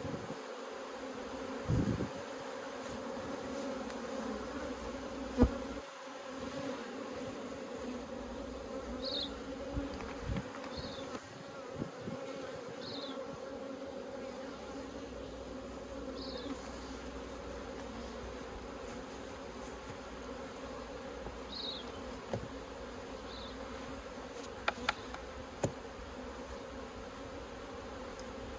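A large honeybee colony humming steadily from the opened hive, with a few sharp clicks and knocks, the loudest about five seconds in, and a few short, high falling chirps.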